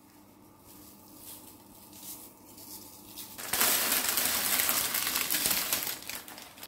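Faint light rustling and ticking while icing sugar is dusted on, then, about three and a half seconds in, a loud rustling scrape of baking parchment being dragged out from under a baked pastry tart, lasting about three seconds.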